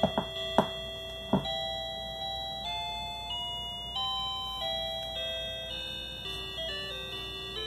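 Simple electronic beeping melody of single pure notes stepping up and down in pitch, played by a Snap Circuits U6 recording IC through a small speaker. A few short knocks come in the first second and a half, before the tune gets going.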